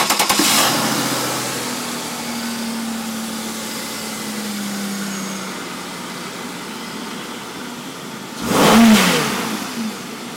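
Chevrolet 3.4-litre V6 catching and running at a fast idle that eases down, then revved once briefly near the end, the pitch rising and falling back. It breathes through a freshly fitted K&N high-flow air filter.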